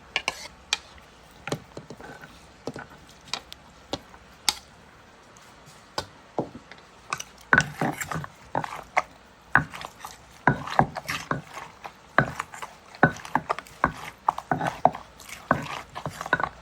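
Irregular sharp knocks and clacks of hands-on kitchen work with utensils, a few scattered strikes at first, then coming thick and fast from about seven seconds in.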